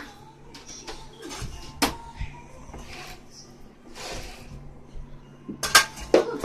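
Scattered knocks, clicks and rustling of household things being handled and moved about, with a sharp knock about two seconds in and a quick cluster of knocks near the end, over a steady low hum.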